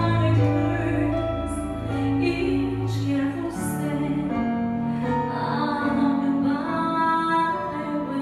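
A woman singing live through a microphone in long held notes, accompanied by a Yamaha Motif XF8 synthesizer keyboard holding sustained bass notes that shift about three and a half seconds in.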